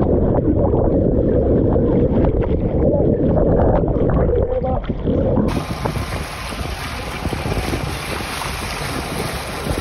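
Muffled rushing and bubbling of churning water, heard through a camera held underwater beside a moving boat, with many small knocks. About halfway through it switches abruptly to open-air sound of water rushing along the boat's side with wind hiss on the microphone.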